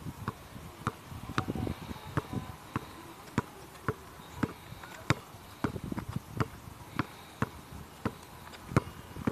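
Basketball dribbled on a concrete court: sharp bounces in a steady rhythm, about two a second.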